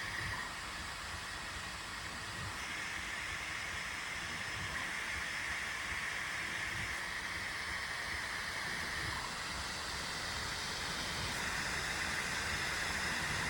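Bambu Lab 3D printer running near the end of a print: steady fan noise with a whine that rises and falls in level every few seconds as the motors move.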